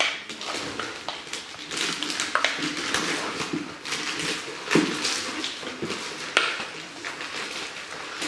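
Wrapping paper and a cardboard gift box rustling and crinkling as a child unwraps a present, with a few sharper crackles and knocks.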